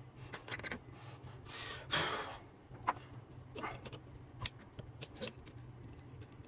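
Scattered light clicks and taps of hand tools and metal parts being handled, with a short scraping rasp about two seconds in.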